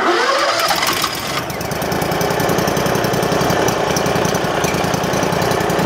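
The RATO gasoline engine of a Big Bear BBC72 wood chipper shredder running just after starting, its speed rising over the first second or so and then holding steady.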